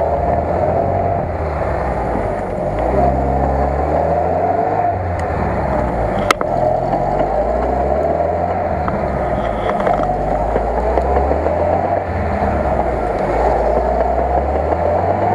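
UAZ-469 engine under load, revving up and dropping back several times as the vehicle crawls through deep mud. A single sharp knock about six seconds in.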